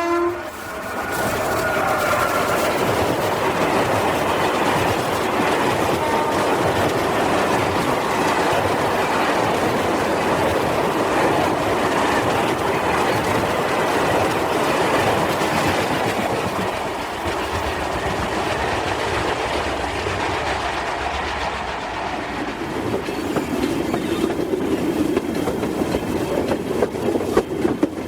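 Freight train passing: heavy wagons rumbling on steel rails, with clickety-clack from the wheels over the rail joints. A horn blast cuts off at the start. From about 23 seconds in, the clacks grow sharper and more distinct.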